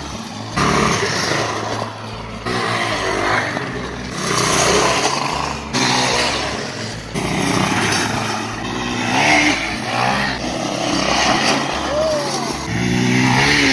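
Small go-kart engine of a 1990s Murray Kilowatt running under throttle as the kart drives over dirt, its sound surging and easing every second or so.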